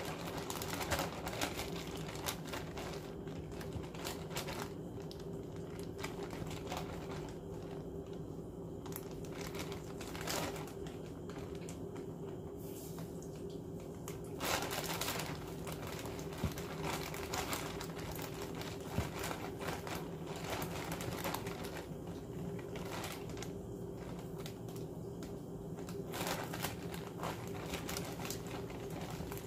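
Plastic zip-top bag crinkling and crackling as raw chicken pieces and a dry seasoned coating are handled and shaken inside it, with a steady low hum underneath.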